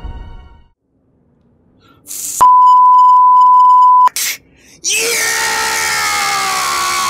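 Film music fades out, then a steady censor bleep sounds for under two seconds over a word. After it a man gives one long, loud yell whose pitch slides slowly downward.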